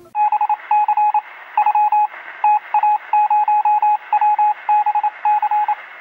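Electronic beeping: a single tone switched rapidly on and off in short and long beeps, like a signal over a radio or phone line, over a faint hiss. It is the opening of an outro music track.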